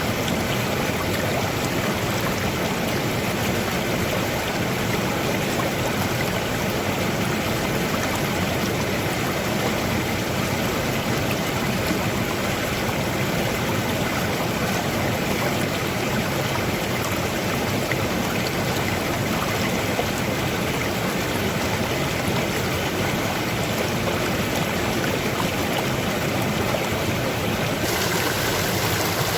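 Stream water flowing steadily, an even rushing and gurgling, with a slight shift in tone near the end.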